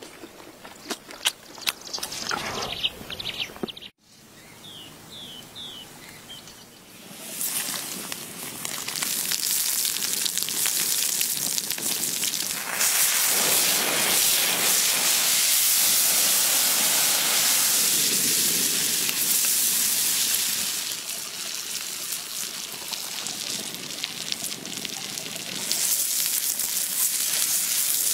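Food frying in hot oil, a dense sizzling hiss that builds in about seven seconds in, is loudest through the middle, eases off and grows louder again near the end. Before it, a few sharp knocks and three short chirps.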